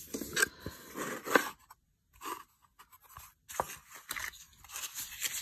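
Wooden card box with a sliding lid being handled and its lid slid open: light scraping of wood on wood with a few small knocks and clicks.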